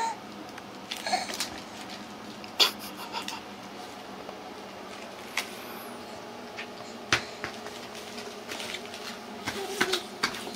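Quiet room background with scattered light clicks and knocks, several seconds apart, the sharpest about two and a half seconds in.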